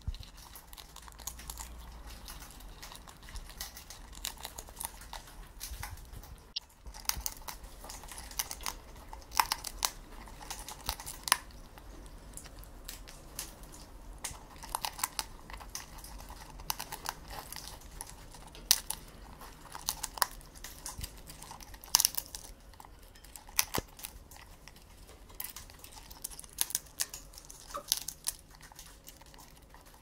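Grey parrot cracking and chewing grain kernels with its beak: irregular sharp cracks over a continuous low crackle, with the loudest cracks scattered through the second half.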